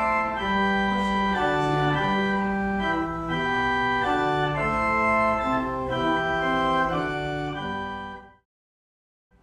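Organ playing a slow tune in held notes over a stepping bass line. It stops abruptly about a second before the end, leaving silence.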